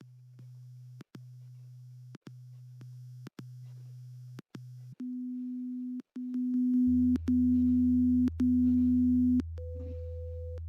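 Pure test tones of a hearing test, beeped in pulses of about a second each. First a low tone repeats about five times, each a little louder. Then a tone an octave higher beeps four times, louder still, and another octave up a steady tone begins near the end, while a steady low hum comes in about seven seconds in.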